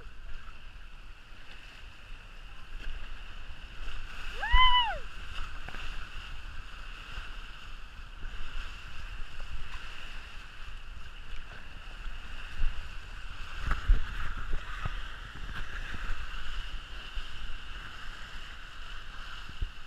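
Rushing, splashing water from a raft or tube ride on a water slide, in a steady wash. A short rising-and-falling cry comes about four and a half seconds in, and there are a few knocks a little past the middle.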